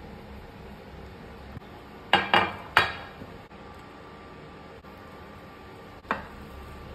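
Kitchenware clattering: three sharp clinks in quick succession about two seconds in, and one more near the end, over a steady background hiss.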